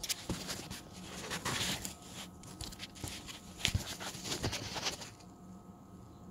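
Handling noise of a phone being picked up, moved and set down: rubbing and bumps against the microphone with several sharp knocks, the strongest about three and a half seconds in. It stops about five seconds in, leaving a faint steady hum.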